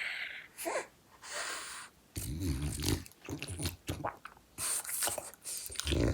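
French bulldog snoring and snorting in its sleep: a series of irregular rough breaths with short pauses between them.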